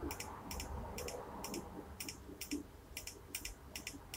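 Laptop hard disk drive ticking as it seeks during boot-up: a run of light, sharp clicks, about two to three a second and unevenly spaced.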